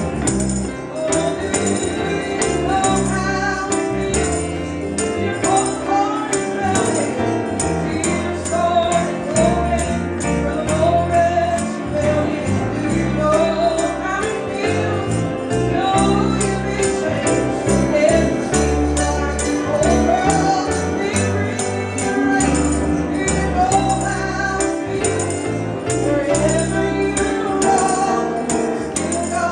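Music: a song with a steady beat of jingling percussion, a bass line, and a melodic voice or lead line over it.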